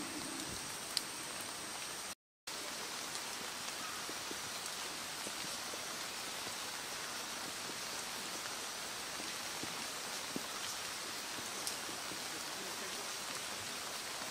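Steady light rain falling, an even hiss with scattered faint ticks of drops, cut off for a moment about two seconds in.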